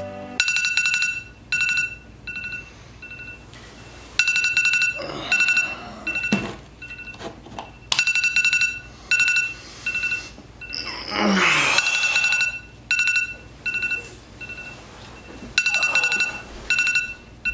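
An electronic wake-up alarm beeping with a high, steady pitch, in repeated runs of rapid beeps broken by single beeps. A short sliding, voice-like sound comes midway through.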